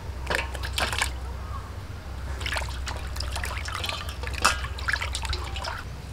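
Water splashing and trickling in a stainless steel bowl as pieces of magur catfish are tipped in and washed by hand, in irregular splashes, with one sharp knock about four and a half seconds in.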